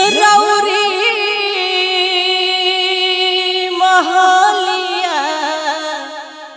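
A woman singing a long, drawn-out note in Bhojpuri purvi style. She slides up into it at the start, holds it, then breaks into ornamented turns about four seconds in.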